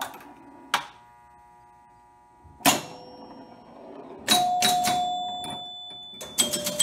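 Gottlieb Card Whiz electromechanical pinball machine in play: sharp mechanical clacks, several of them followed by ringing chime tones that slowly fade, in clusters about a second in, near three seconds, around four and a half seconds, and a quick run of clacks near the end.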